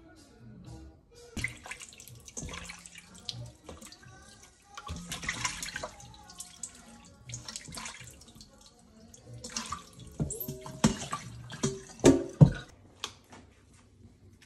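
Kitchen tap water running in several short spells into a stainless-steel sink while raw chicken is rinsed in a bowl, with a run of sharp knocks and clatters near the end.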